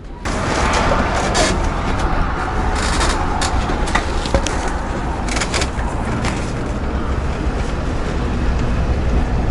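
Road and engine noise of a moving vehicle: a steady loud rumble with a noisy hiss over it, cutting in abruptly just after the start, with a few light knocks and rattles scattered through.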